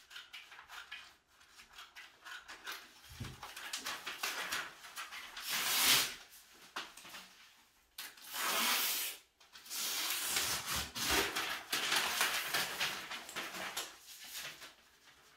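Scissors cutting along the outline of a paper sewing pattern, with quick crisp snips and longer stretches of paper rustling as the sheet is handled and turned.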